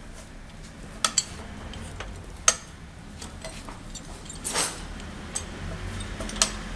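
Metal clinks and knocks as a coil-spring compressor is handled against a car's front strut and coil spring: about five sharp clicks, the loudest about two and a half seconds in, and a brief scrape a little after four and a half seconds.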